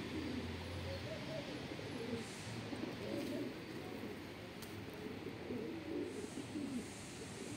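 Several domestic pigeons cooing, their wavering calls overlapping without a break.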